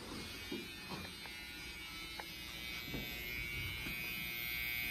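Electric hair clippers running with a steady buzz, getting louder in the second half as they come closer.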